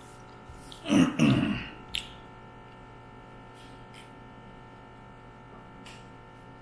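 A man's throat sound about a second in: a short two-part guttural noise that falls in pitch, like clearing his throat. A few faint clicks follow over a steady hum.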